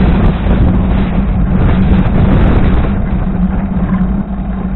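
Strong, gusty wind buffeting the microphone: a loud, rough rumble that eases slightly after about three seconds.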